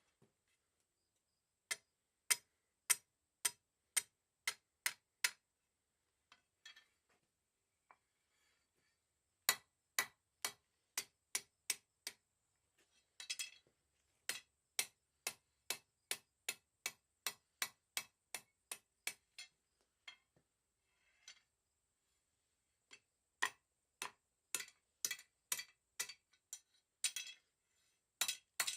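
A blacksmith's hammer striking a hot mild steel round bar on the anvil in steady runs of sharp, ringing blows, about two a second, with pauses between the runs.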